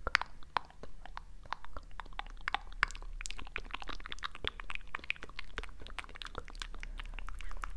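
Close-miked crackling and clicking: a dense, irregular run of small sharp clicks.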